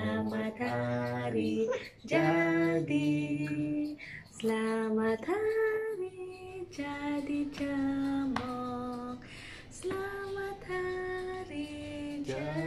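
A woman's voice, joined by a child's, singing a birthday song in held, stepped notes.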